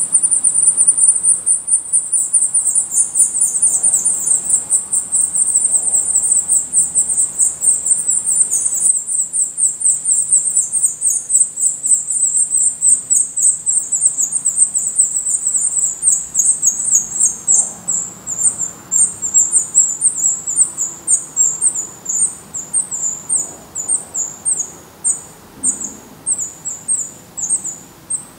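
Black redstart nestlings begging at the nest while being fed: a high-pitched, rapid run of calls that thins after about halfway into separate short calls, a few a second.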